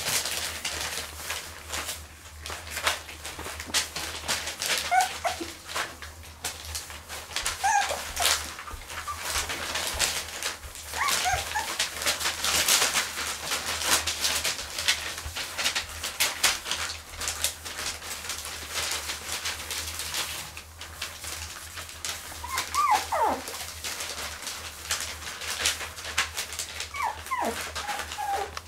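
Cotton de Tulear puppies moving about on spread newspaper, the paper crackling and rustling under their paws, with several short whimpers and yelps, some sliding down in pitch.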